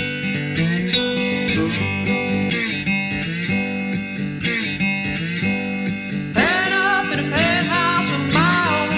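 Song with plucked guitar over a steady low bass line; a singing voice comes in about six and a half seconds in.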